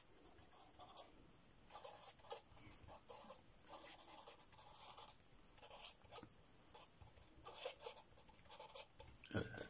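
Felt-tip marker writing on paper: short, faint scratchy strokes that come and go as words are written, with a brief louder bump near the end.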